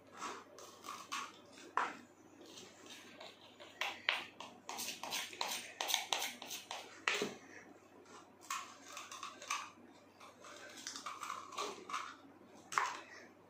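A plastic spoon scraping and tapping as baking soda is scooped from a cup and tipped into a plastic funnel, in an irregular run of clicks and short scrapes.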